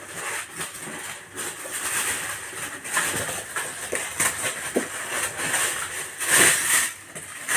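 Delivery parcel's packaging rustling and crinkling as it is torn open by hand, with scattered small clicks and a louder burst of rustling about six seconds in.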